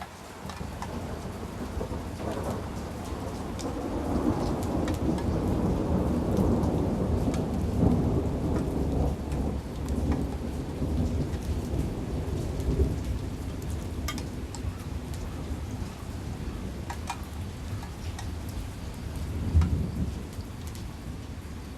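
Long rolling thunder over steady rain, rumbling up over the first few seconds and carrying on, with a second, louder swell near the end.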